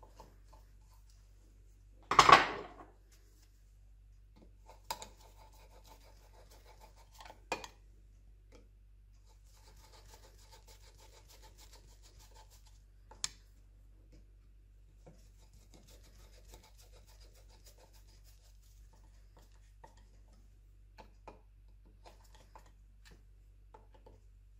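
Metal tools and parts handled while the gearbox's retainer ring is bolted in place: a loud clatter about two seconds in, a few sharp clicks, and two faint stretches of rasping.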